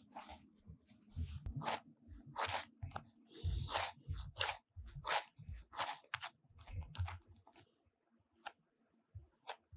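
Bread dough kneaded by hand in a glass bowl: a quick, uneven run of short sticky squelches and tearing sounds as the dough is pressed, folded and pulled, with dull bumps underneath. The sounds thin out about seven and a half seconds in, leaving a couple of light clicks.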